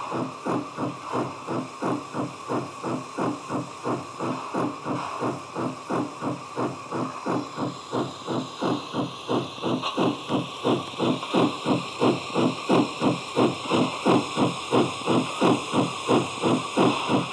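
Steam-locomotive exhaust chuffs, about three a second in an even rhythm, with hiss, from a model steam locomotive running on rollers. They grow louder and hissier about halfway through.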